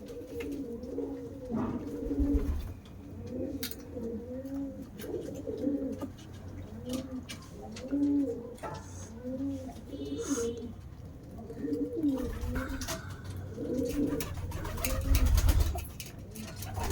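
Domestic pigeons cooing over and over, one rising-and-falling coo about every second, with scattered light clicks and a few low thumps between the calls.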